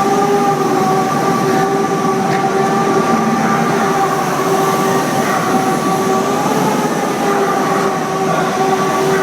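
A machine running steadily: a constant whine with a rushing noise under it.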